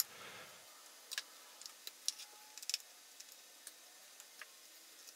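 Faint, scattered small clicks and ticks of cable connectors and ribbon cables being unplugged and handled on a circuit board.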